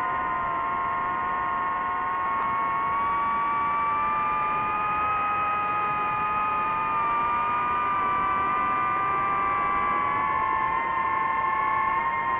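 DJI FPV drone's motors and propellers whining steadily in flight, several pitches drifting slowly up and down against each other as the motor speeds change.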